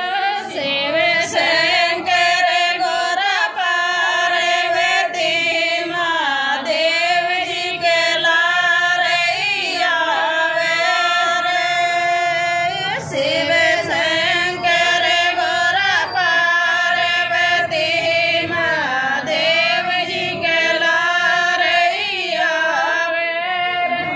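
A woman singing a Hindi folk song in long held notes that waver and slide in pitch, one voice carrying the melody. The singing breaks off near the end.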